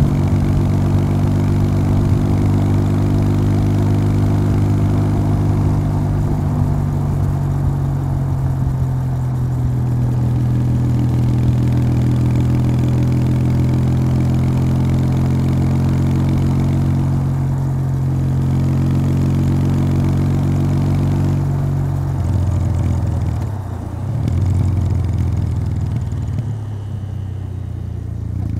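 Kawasaki W800's air-cooled parallel-twin engine through its stock exhaust, running steadily at cruising speed under the rider. About three-quarters of the way through the engine note changes and falls off, with a brief dip, and it picks up again at the very end.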